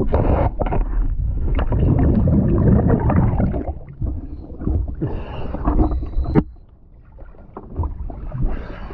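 Water rushing and bubbling around an underwater camera, with a few knocks from handling. It is loudest over the first few seconds and quieter for a moment about seven seconds in.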